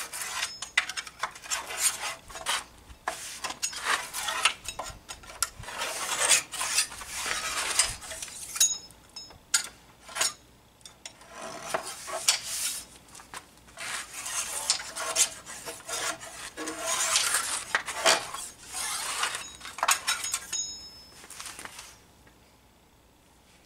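Old clear coat being scraped and rubbed off the wooden slats of a bench by hand, in irregular strokes with short pauses, fading out near the end.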